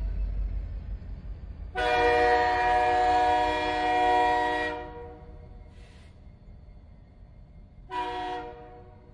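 Train horn sounding a long blast of about three seconds, then a short blast near the end, both a chord of several tones. Under it, a low rumble of the train fades out over the first couple of seconds.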